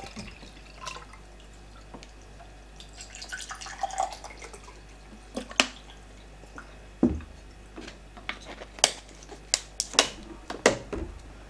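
Water poured and dripping from a plastic water bottle into a glass mug, followed by a series of sharp clicks and crinkles as the plastic bottle is handled and capped, a few of them louder near the end.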